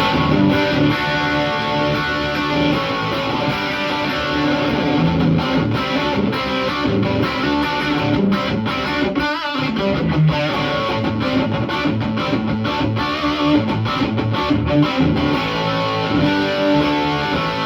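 Gibson SG electric guitar played through a Marshall SC20C (JCM800 20-watt reissue) tube combo with a Wampler Pantheon overdrive pedal switched on: continuous overdriven chords and riffs with reverb, with a brief break about halfway through.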